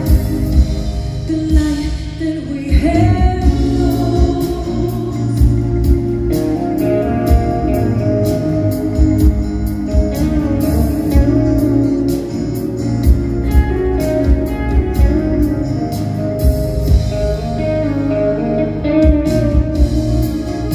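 A live rock band and orchestra playing a piece with singing over a steady drum beat, heard from the seats of a large arena.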